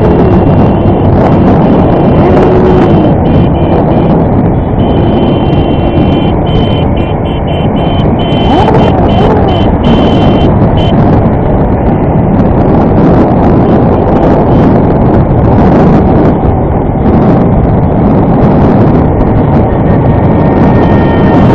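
Heavy wind noise buffeting the microphone of a camera on a moving motorcycle, with the motorcycle engine running underneath. A faint high steady tone comes and goes in the middle.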